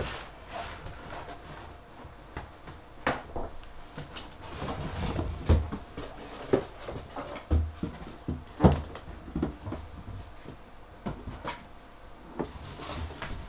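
Unpacking noise: cardboard box and pulp packing rustling and scraping as a plastic Kärcher pressure washer and its hose are lifted out, with irregular knocks and bumps, the loudest about five and a half and nine seconds in.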